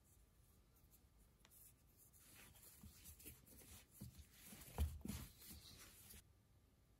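Hands kneading brioche dough on a floured tabletop: faint rubbing, pressing and slapping, with a dull thump about five seconds in.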